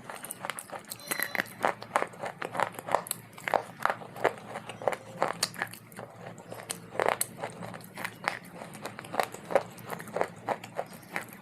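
A person chewing hard, dry clay, with rapid, irregular crunches, several a second.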